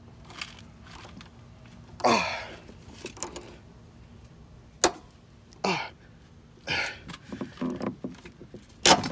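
Ratchet with an extension and 16 mm socket loosening the upper mounting bolts of a Mk6 Golf's rear shock absorber: scattered metallic clicks and knocks, with a sharp click about five seconds in and a louder knock near the end.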